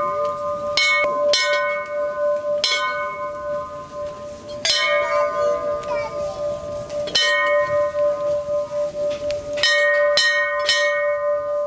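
Metal temple bell struck again and again, about eight times at uneven intervals, several strikes close together near the end; each strike rings on in a steady tone that has not died away before the next.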